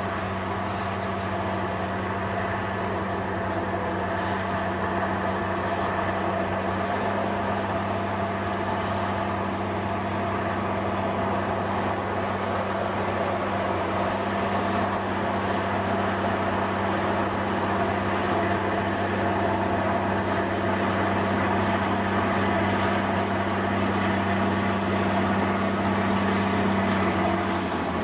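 Bulldozer's diesel engine running at a steady, unchanging note while working, growing slightly louder over the stretch.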